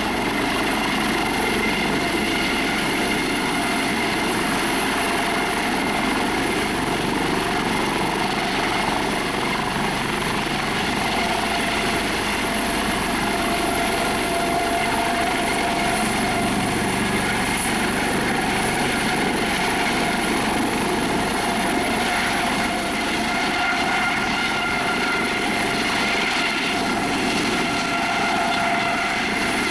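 Eurocopter AS365 Dauphin twin-turbine helicopter hovering low and descending to land: steady turbine whine and rotor noise with several constant high tones.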